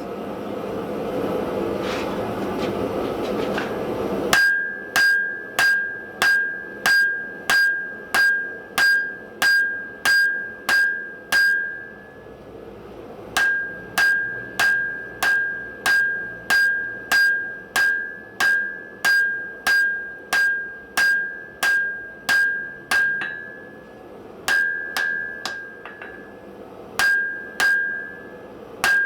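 A steady rushing noise, then hammer blows on an anvil from about four seconds in. The blows come in a regular run of just under two a second, each with a clear high ring, and pause briefly twice. It is hot steel being forged: a san mai billet of wrought iron over 5160 spring steel.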